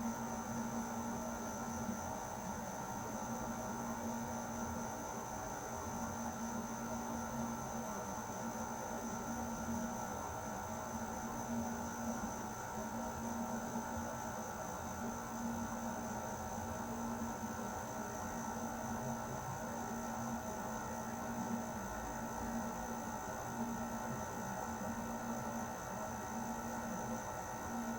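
Air conditioner running steadily: a constant hum and whir with a low tone that wavers slightly every second or two.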